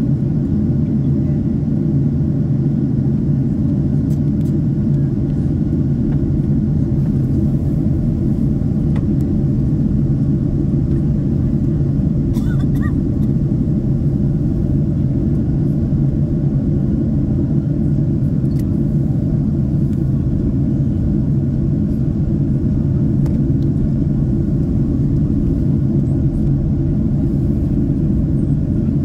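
Steady low rumble of a Boeing 767-300 airliner heard inside the passenger cabin: engine and airflow noise.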